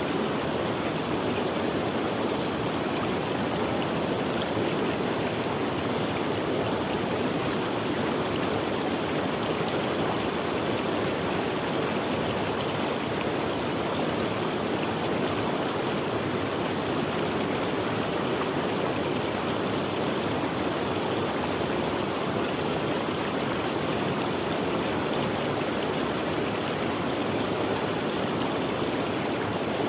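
Running water of a stream flowing steadily, an even rushing sound with no pauses or changes.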